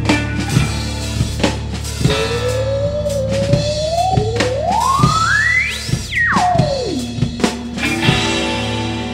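Instrumental psychedelic rock from drum kit, bass and effects-processed guitar. A single effected tone slides up from low to very high over about four seconds, then drops back down quickly. The drums stop near the end, leaving sustained bass and guitar.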